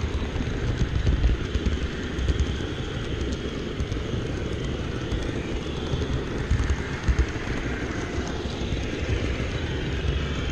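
HO scale model train rolling along the track, heard from a camera riding on it: a steady rumble with light, irregular clicks from the wheels on the rails.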